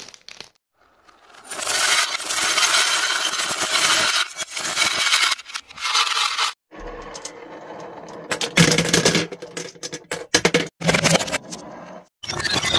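A run of toy-handling sounds: a water-bead mesh stress ball being squeezed, then small wooden beads clattering in a plastic box with a string of sharp knocks, then glass marbles starting to roll along a wooden spiral track near the end.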